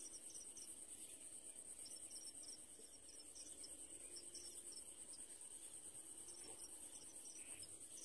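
Faint, steady, high-pitched insect trill, as from crickets, with a fast even pulse and faint short chirps now and then.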